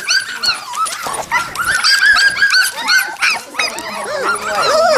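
A litter of standard poodle puppies yipping and whimpering: many short, high-pitched cries overlapping, several a second.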